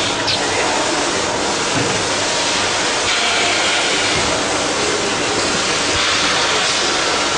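SP 390P thermoforming packaging machine running, a loud, steady mix of machine noise and hiss.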